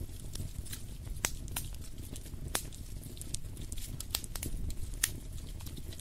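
Wood fire crackling in a fireplace: irregular sharp pops and snaps over a steady low rumble, with a few louder pops, one each at about one, two and a half, and five seconds in.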